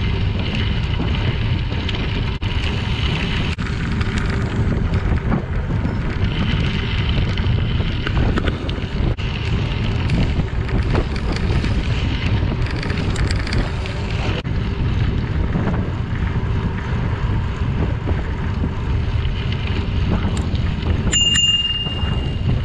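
Wind buffeting the microphone of a camera on a moving bicycle, over the steady rumble of tyres rolling on a crushed limestone trail. A brief high ring sounds near the end.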